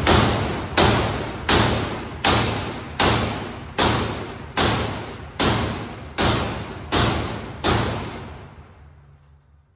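Heavy hammer striking the steel hinge of a roll-off dumpster tailgate to straighten it: about eleven hard metal blows at a steady pace of roughly four every three seconds, each ringing briefly. The blows stop a couple of seconds before the end and the ring dies away.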